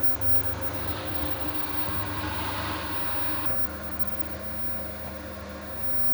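Washing machine filling with water fed by the electric water pump: a steady hum with a hiss of running water that cuts off suddenly about three and a half seconds in. A lower steady hum carries on after it.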